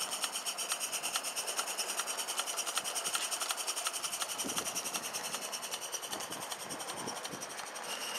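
Accucraft live-steam Lynton and Barnstaple 'Lew' garden-railway locomotive running, with a rapid, even beat and a steady hiss of steam.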